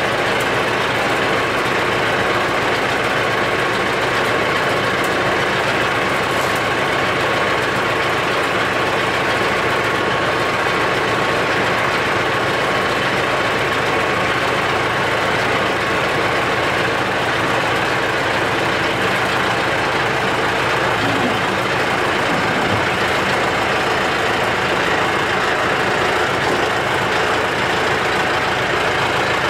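Tractor engine running steadily at idle, with a thin steady whine over it that fades out about halfway through.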